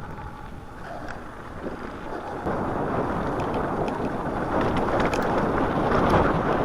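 Wind rushing over the microphone with a mountain bike's tyres rolling on snow on a downhill. The rush jumps louder about two and a half seconds in and keeps building as speed picks up.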